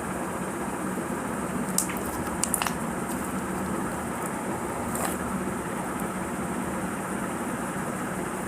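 Slime being squished and worked by hand, giving a few small sharp pops and clicks: one early, three close together a little later, another about halfway through, over a steady hiss.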